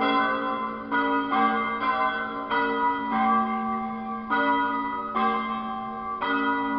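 Church bells ringing in turn, a new bell struck every half second to a second, each stroke ringing on under the next.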